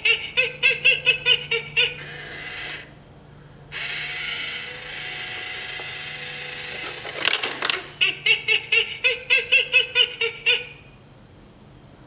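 Battery-powered panda coin bank going through its coin-grabbing cycle: a quick run of electronic chirping notes from its speaker, then a small motor whirring for a few seconds as the lid lifts and the panda pulls the coin in. The chirping notes play again and stop about ten and a half seconds in.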